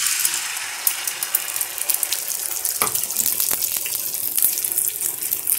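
Beaten egg batter with chopped onion and tomato sizzling and crackling steadily in well-heated oil on a dosa griddle, just after being poured in.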